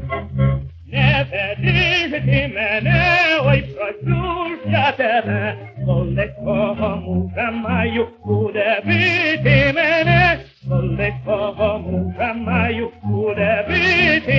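Male tenor singing a Ukrainian folk song with vibrato over orchestral accompaniment, from a 1928 Columbia electrical-process 78 rpm record.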